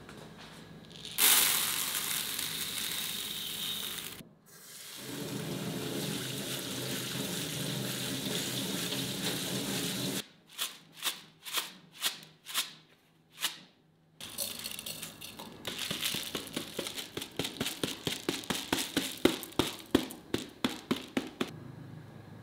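Rice being washed in a woven bamboo colander at a kitchen sink. First tap water runs into it, then come about seven short sloshes as the water is tipped out. Then there is fast, rhythmic rattling and swishing of the wet rice grains against the bamboo.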